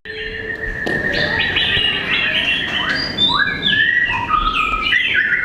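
A chorus of aviary songbirds: many overlapping whistles, chirps and sliding notes, over one whistled note held for several seconds.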